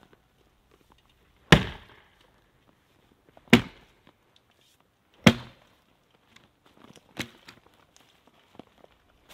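Axe chopping into a fallen log: three heavy strikes about two seconds apart, then a lighter knock about seven seconds in.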